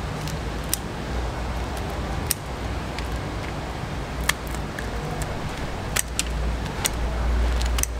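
Kitchen shears snipping through the shells of grilled mantis shrimp: several sharp metallic snips and shell cracks, spaced irregularly about a second apart, over a steady low rumble.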